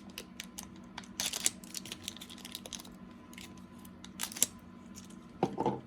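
Trading cards being handled: scattered light clicks and soft brushing of card stock, with a few louder rustles, over a faint steady hum.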